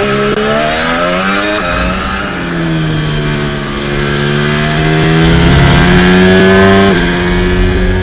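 Honda Formula 1 1.6-litre turbocharged V6 hybrid power unit running at high revs. Its pitch climbs and then drops suddenly, once about one and a half seconds in and again near the end.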